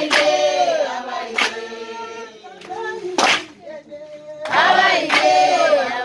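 A group singing in loud phrases: one at the start and another from about four and a half seconds in. Sharp claps ring out every second or two.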